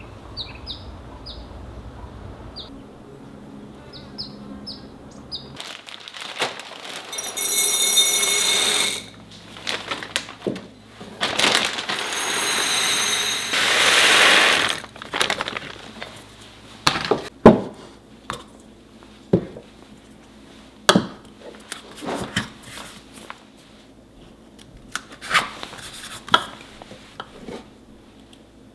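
Dried grains, sorghum among them, poured into glass jars in two long pours, a loud rattling rush of grain on glass. Sharp knocks and clinks follow as the filled jars and their lids are handled. A few faint bird chirps come before the pouring.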